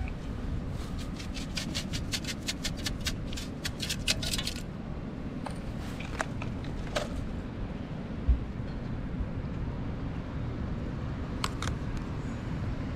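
Sand being shaken through a perforated metal sand scoop: a quick rhythmic rattle of about five strokes a second lasting about four seconds, then a few single sharp clicks. A steady low wind rumble on the microphone lies under it.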